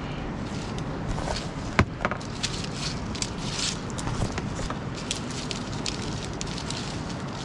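Crackling, rustling and clicking of a power cord being handled, with one sharper click about two seconds in, over a steady background hiss.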